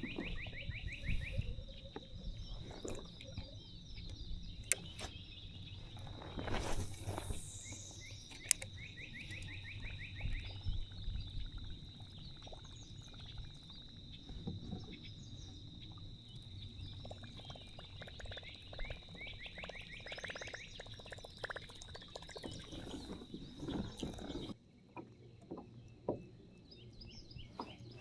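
Short, rapid trilling animal calls, repeated a few times, over low water and kayak noise with scattered light knocks. A steady high whine runs beneath and cuts off suddenly near the end.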